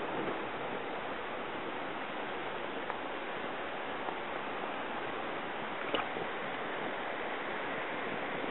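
Steady rush of flowing river water, with one sharp click about six seconds in.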